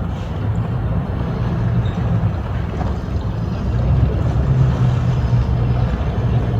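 Boat engine running steadily at low speed, a low hum that swells slightly about four seconds in.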